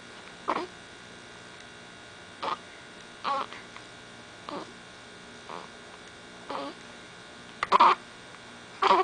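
A pet hiccuping: short, sharp hics about once a second, some in quick pairs, the ones near the end louder, over a steady electrical hum.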